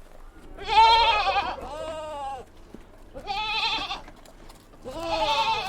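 Goats bleating: four wavering calls in a row, the first the loudest.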